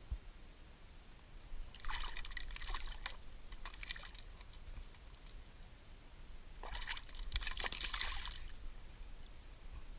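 Water splashing and trickling in three short bouts, with a low rumble underneath.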